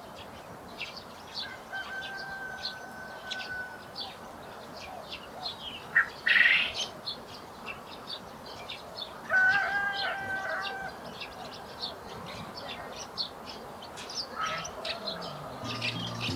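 Garden birds chirping in many quick, short high notes, with a held whistle near the start. About six seconds in comes a loud, harsh burst, and around ten seconds in a louder drawn-out call of several tones.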